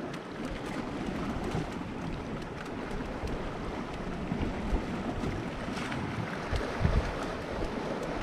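Wind buffeting the microphone in uneven gusts over the steady wash of small sea waves against shore rocks.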